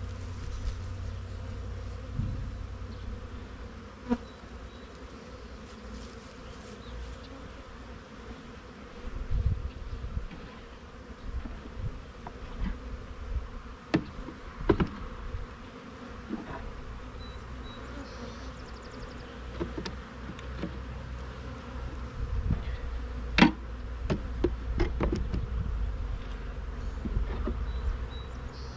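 A honeybee colony humming steadily from an open hive, with scattered sharp wooden knocks and clicks as frames are set down into the hive box, the loudest about halfway through and again later on.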